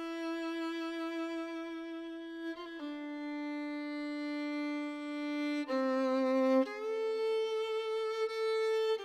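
Solo violin playing a slow melody of long held notes, the first lasting about two and a half seconds, then changing pitch about every one to three seconds.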